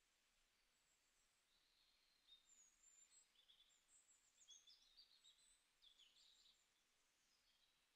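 Near silence, with faint high chirps and twitters from about two seconds in until shortly before the end.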